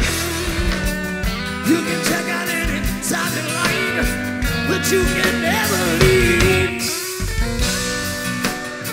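Live band music: a man sings a sliding, ornamented vocal line over electric and acoustic guitars, and the voice drops out in the last couple of seconds while the instruments play on.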